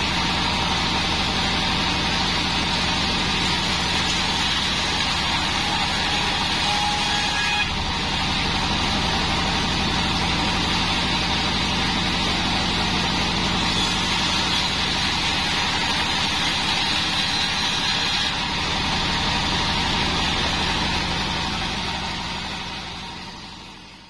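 Bandsaw mill running with a steady, loud machine drone as it saws Bayur wood. The sound fades out near the end.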